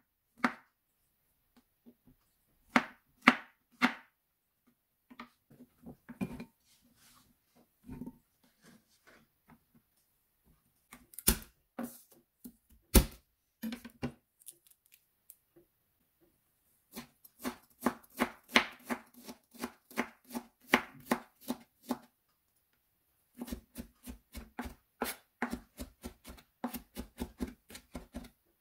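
Kitchen knife cutting on a bamboo cutting board: slow, separate slices through button mushrooms first, then, after a pause, runs of fast, even chopping of garlic cloves, several strokes a second.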